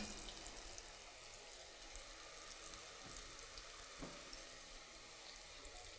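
Faint sizzling of thin breaded onion strings deep-frying in oil, with a light click about four seconds in.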